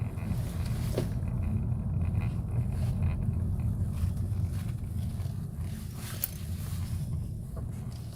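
Steady low rumble of a new Suzuki Vitara running, with a faint high tone in the first few seconds and a few light clicks. The noise is presented as abnormal for the car.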